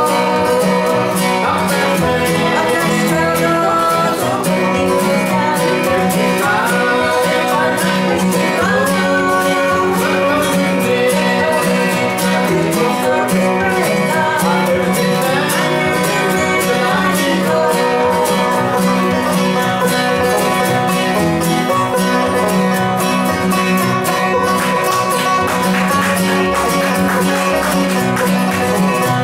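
Bluegrass band playing live: five-string banjo, acoustic guitars and upright bass.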